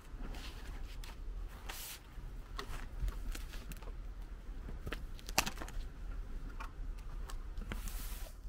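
Handling of a spiral-bound binder with plastic sleeve pages as it is opened and leafed through on a table: rustling of plastic sheets and paper with small clicks and knocks. The longer rustles come about two seconds in and near the end, and a sharp click comes about halfway through, over a low steady background rumble.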